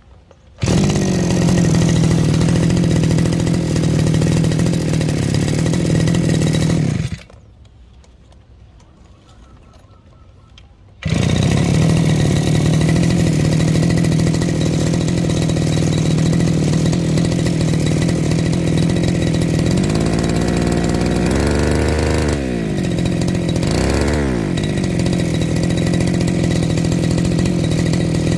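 Small brush cutter engine starts and runs steadily, cuts out after about six seconds, then is started again about 11 seconds in and keeps running, revved up and down twice near two-thirds of the way through. It is being test-run after a carburettor service.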